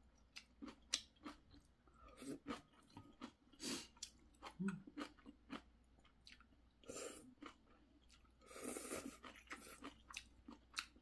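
Faint close-up eating sounds of instant crab ramen noodles: soft chewing with many small mouth clicks, and a few short noisy slurps as noodles are sucked in, the longest at about nine seconds.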